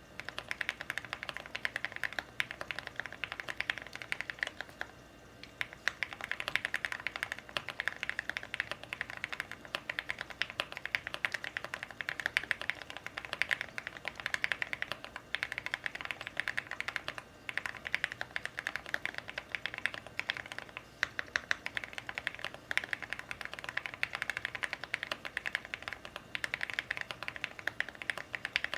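Typing on a custom mechanical keyboard: an Owlab Mr. Suit with Everglide Aqua King linear switches lubed with Krytox 205g0, a PC plate, full foam and aluminium Aluvia keycaps. A fast, continuous run of keystroke clacks, with a brief pause about five seconds in.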